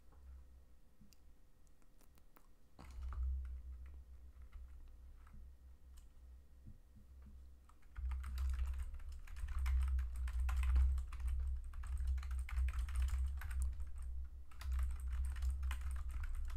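Typing on a computer keyboard: a few scattered keystrokes at first, then a fast, continuous run of keystrokes from about halfway, with a brief pause shortly before the end.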